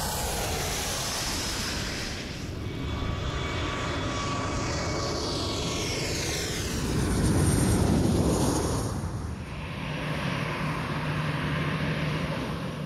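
Jet airliner engines passing low overhead: a loud rush with whines falling in pitch as the aircraft go by, loudest in the middle, then a steady engine rush near the end.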